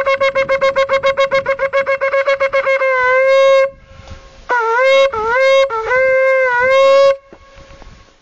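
A shofar being blown: a fast run of short staccato notes for about three seconds, then a held note, and after a short break a few more blasts that each scoop up in pitch at the start, the last one long.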